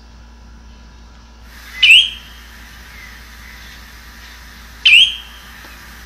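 Spotted redshank giving its sharp, rising 'chiwit' call twice, about three seconds apart.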